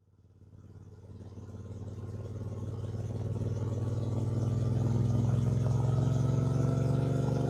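Triumph Bonneville T120's 1200 cc parallel-twin engine running steadily, fading up from silence over the first few seconds, its pitch creeping slightly higher.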